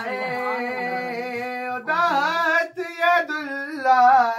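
Voices singing a Punjabi naat (devotional song) in long held notes with bending, ornamented turns.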